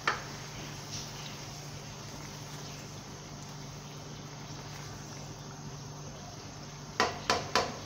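Thick curry being stirred with a spoon in a non-stick kadai over a steady low hum and hiss. Near the end the spoon knocks sharply against the pan in a quick run of about four strikes.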